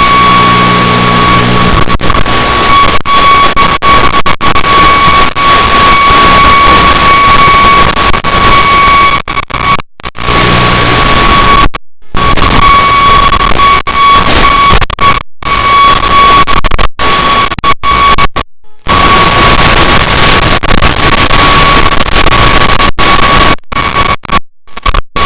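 Loud radio static hiss with a steady high whine running through it, cutting out to silence for short moments several times. It is typical of the audio from an analog FPV video receiver.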